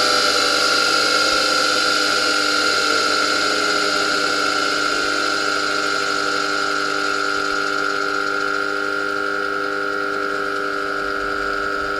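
Buehler EcoMet 3 grinder-polisher running, its motor-driven platen giving a steady high whine. A few of its tones glide slightly downward in the first few seconds, then it runs on evenly, slowly getting a little quieter.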